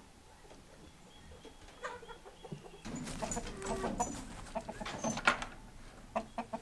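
Chickens clucking from about three seconds in, after a faint start, with a few sharp knocks as the wooden coop is handled.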